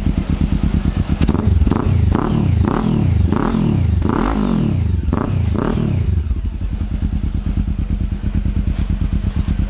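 Moby Sport's engine running through a Coyote TRS 'Roncar' aftermarket exhaust tip. The throttle is blipped in quick revs about eight times over the first six seconds, then the engine settles to a steady, even idle.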